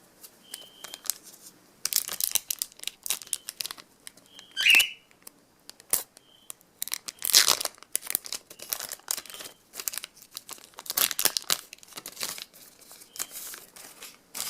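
A trading card pack wrapper being torn open and crinkled in irregular bursts, with the cards being handled.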